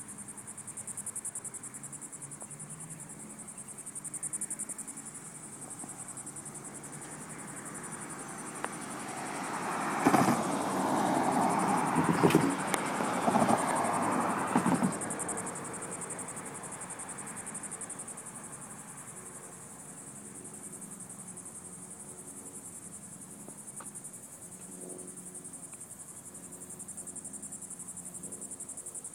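Steady high-pitched trilling of insects, with cars driving past on the road in the middle, a loud rush of tyre and engine noise lasting about five seconds.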